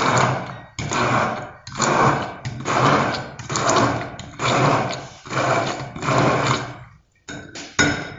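Immersion (stick) blender run in repeated pulses of under a second, about eight in a row at roughly one a second, puréeing roasted eggplant with garlic in a jug. It stops about seven seconds in, followed by a few short bursts.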